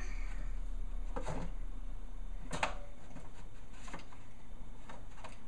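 A few separate light knocks and rattles, about a second apart, as a toddler handles a refrigerator's door and its shelves or drawers.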